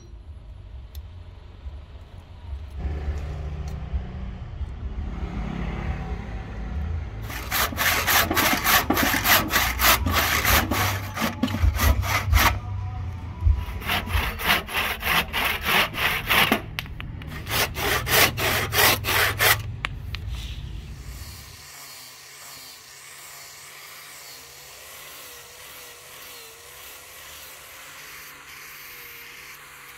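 A handsaw cutting through the protruding end of a palm-wood axe handle: quick back-and-forth strokes in three runs with short pauses. About 22 seconds in, the sawing stops and gives way to a quieter steady hiss as an electric rotary sander works the handle.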